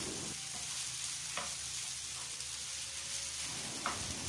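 Cooked rice being stirred into a sizzling tomato mixture in a frying pan: a steady frying sizzle with two short knocks from the stirring.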